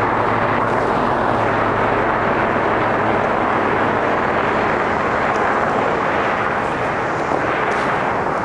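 Steady, loud outdoor roar with no beat or voices, and a faint low hum under it for the first three seconds or so.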